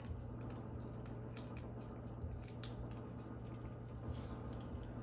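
Faint scattered small clicks as the nut is unscrewed and handled at the end of a ceramic water-filter candle, over a steady low hum.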